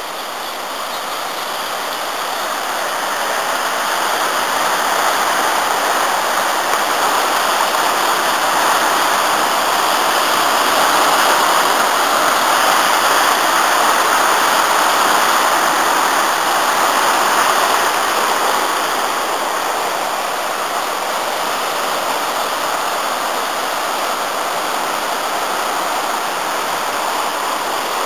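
The Afon Artro in spate after heavy rain, rushing over rocks in white-water rapids. The rush grows louder over the first few seconds and eases a little after about eighteen seconds.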